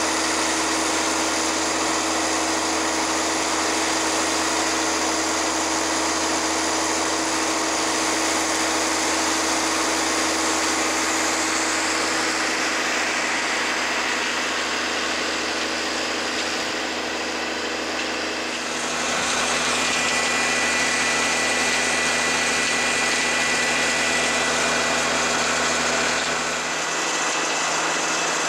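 Massey Ferguson tractor's diesel engine running steadily, driving a slurry pump, with a constant mechanical hum. About two-thirds of the way through the tone shifts and a thin high whine comes in, and near the end the deepest part of the hum drops away.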